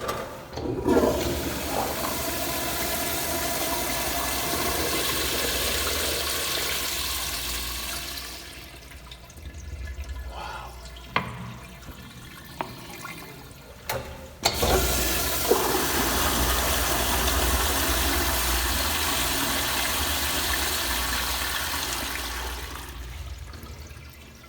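1930s Crane Rapidway toilet flushing twice, each flush a loud rush of water lasting about eight seconds, as it carries away a large load of toilet paper. A few sharp clicks come in the quieter gap between the flushes.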